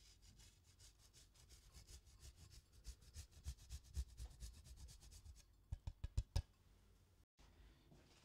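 Hard Parmesan cheese being grated: fast, even rasping strokes, about seven a second. A little past halfway come four sharp taps in quick succession.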